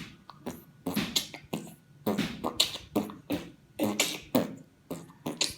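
Vocal beatboxing imitating wind: a quick run of breathy puffs and hissing whooshes made with the mouth, about three a second.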